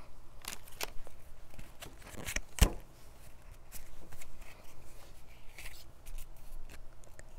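Pokémon trading cards being handled and flipped through after a foil booster pack is opened, with soft paper rustles, light clicks and one sharp tap a little over two and a half seconds in.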